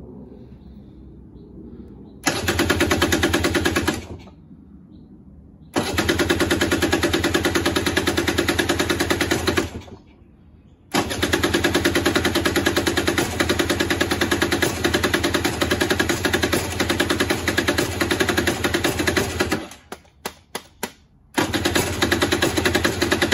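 Electric starter cranking the Aprilia RS 125's two-stroke single after ten years laid up, in four bursts of a few seconds with short pauses between. The engine turns over in a fast, even beat without catching, and a few short clicks come just before the last burst.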